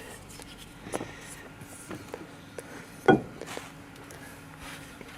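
Light clicks and taps of hard parts and tools being handled, with one louder knock about three seconds in that rings briefly.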